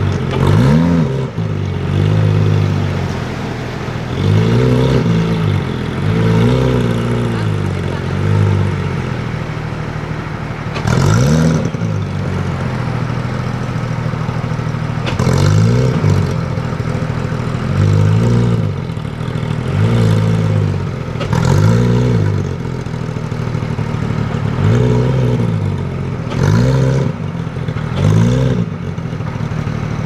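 Porsche 911 GT3's naturally aspirated flat-six being free-revved while standing: a long series of short throttle blips, each rising and falling, about every two seconds, over a steady idle. One sharper, higher rev comes about eleven seconds in.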